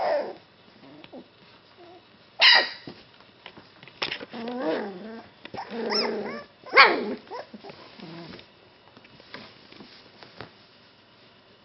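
Golden retriever puppies yapping and growling as they wrestle, with sharp yaps about two and a half and seven seconds in and wavering calls between. It goes quieter over the last few seconds, leaving only faint scuffling.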